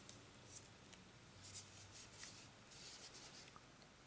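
Near silence, with faint soft rubbing and a few light ticks from gloved hands handling a plastic paint cup.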